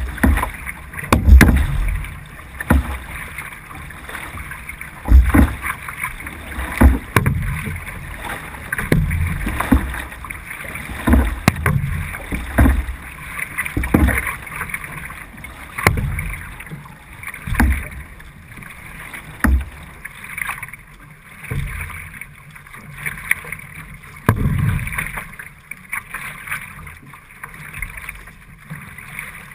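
C1 sprint canoe being paddled hard: a low thump and splash as the blade catches the water about every one and a half seconds, over a steady rush of water, heard from a camera on the bow.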